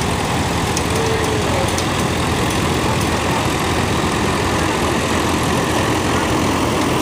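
Tractor engines running steadily.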